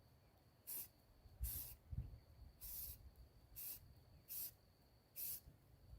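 Aerosol spray-paint can giving six short squirts of hiss, spaced about a second apart, with low wind rumble underneath.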